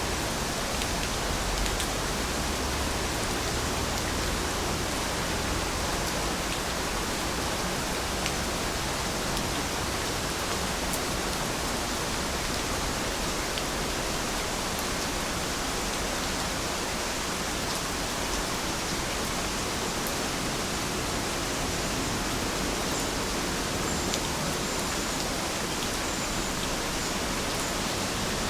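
Heavy rain falling steadily, an even hiss with faint scattered drop ticks.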